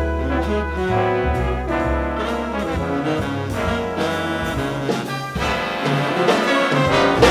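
A jazz big band plays together: saxophones, trumpets and trombones over piano, guitar, bass and drums. The ensemble swells to a loud full-band hit near the end, which then breaks off sharply.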